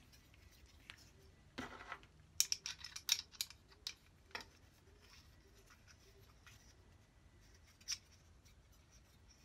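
Small metal clicks and scrapes from the hexagon nut, washer and blade on the brass pivot of a sliding bevel gauge as the nut is reseated a couple of faces round to reposition the lock. There is a short scrape, then a quick cluster of sharp clicks about two to three and a half seconds in, and single clicks about four seconds in and near the end.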